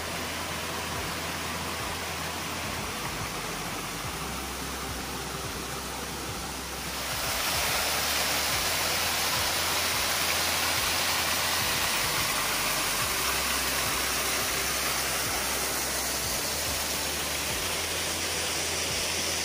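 Water rushing over a waterfall's rock ledges, a steady hiss that gets louder about seven seconds in and stays there.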